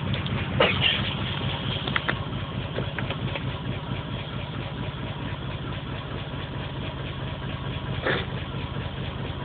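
Car engine idling with an active random misfire (P0300 code, check engine light flashing), a few brief knocks or clicks over the steady engine sound, the loudest about half a second in and one near the end.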